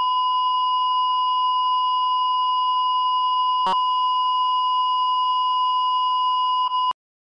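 A steady, unbroken electronic tone, like a test-tone beep, held at one pitch. A brief click comes about halfway through, and the tone cuts off abruptly near the end.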